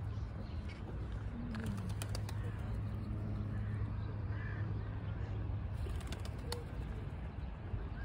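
Feral pigeons cooing low, a short coo about a second and a half in, over a steady low rumble. Two runs of light clicks come about two seconds in and about six seconds in.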